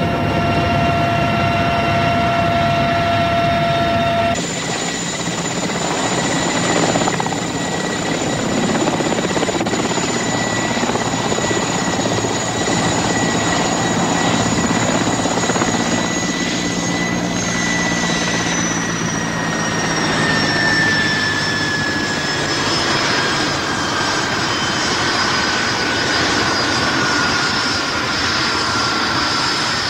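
Music cuts off about four seconds in, giving way to the steady rotor noise and high turbine whine of a Mil Mi-8 helicopter. Past the middle the whine falls steadily in pitch as the turbines wind down on the ground after landing.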